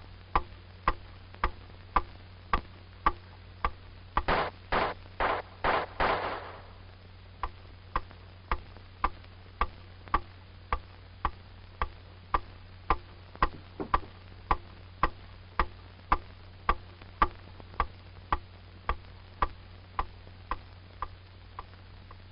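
A quick series of five pistol shots within about two seconds, about four seconds in, echoing in an indoor range. A steady ticking about twice a second runs under it.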